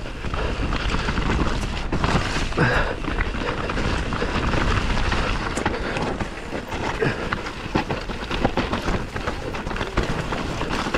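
Mountain bike (Santa Cruz Bronson) riding fast down a rough dirt trail: tyres running over the ground with a steady rush, and the bike clattering with many sharp knocks and rattles.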